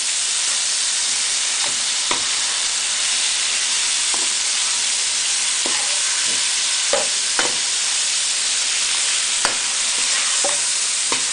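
Deboned duck feet sizzling in a wok as they are stir-fried in sauce: a steady frying hiss broken by a dozen or so short clicks and scrapes of the wok spatula.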